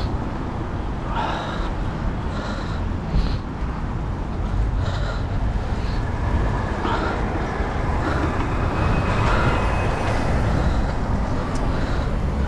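Road traffic noise: a steady low rumble of vehicles on the road.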